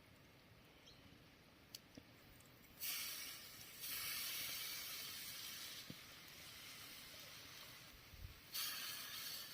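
Campfire embers hissing and steaming as water is poured onto them to put out the fire. The hiss comes in three surges, about three seconds in, four seconds in and near the end, each starting sharply and fading slowly.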